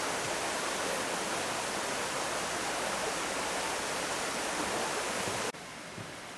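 Steady, even rush of a stream's running water. It cuts off abruptly about five and a half seconds in, leaving a much quieter outdoor background.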